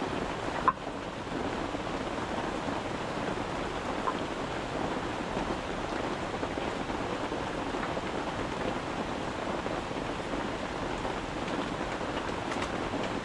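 Steady rain falling on a tent, an even hiss with one sharp tick less than a second in and a fainter one about four seconds in.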